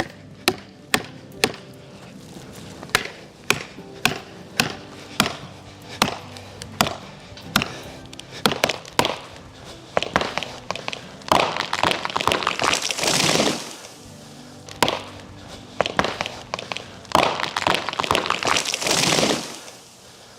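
Background music with a steady percussive beat, about two hits a second over sustained tones, swelling twice into louder noisy passages.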